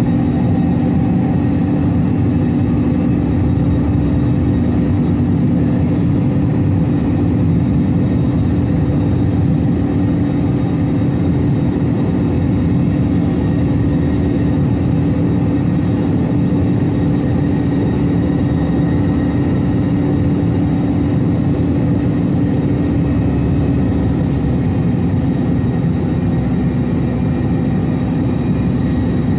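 Steady drone of an Airbus A321 in flight, heard from inside the cabin: engine and airflow noise with a constant low hum and a few steady higher tones, unchanging throughout.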